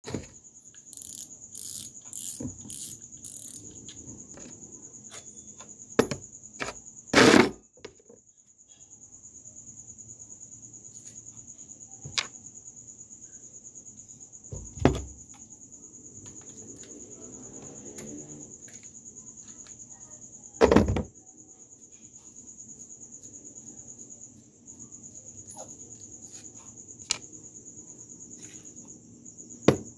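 Metal parts of a spinning fishing reel handled and set down on a wooden table: several sharp clacks and knocks, the loudest about a quarter of the way in and again about two-thirds of the way in. Under them, a steady high-pitched insect chirring.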